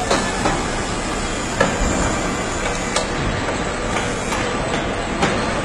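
Car assembly-line factory noise: a steady din of machinery with scattered short metallic clanks and clicks from tools and fixtures, the sharpest about one and a half seconds in.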